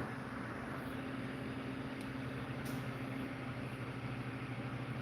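Steady low machine hum in the room, like a fan or other running appliance, with two faint light ticks about two seconds in and shortly after.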